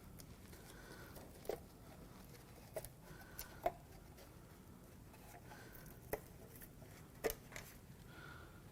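Sparse light clicks and taps of metal parts being handled while the head gasket is taken off the BMW S52 engine block, about seven over several seconds, the sharpest a little before halfway and near the end.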